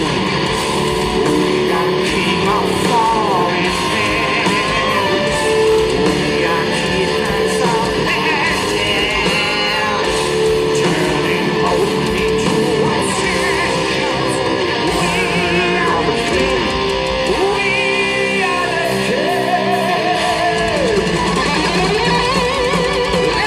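Power metal band playing live: distorted electric guitars, bass and drums, with a singer's voice and guitar lines that waver in pitch, heard through an arena PA from among the audience.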